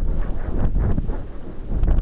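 Wind buffeting the onboard camera's microphone of a high-power rocket descending under its parachute: a loud, gusty low rumble that surges and eases.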